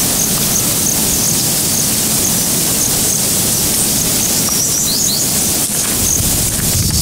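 Steady, loud outdoor hiss, with short high chirps repeating through it and a couple of quick falling whistles about five seconds in.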